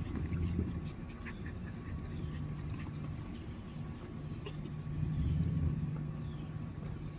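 Toy poodle puppies whining faintly over a steady low hum, which swells briefly about five seconds in.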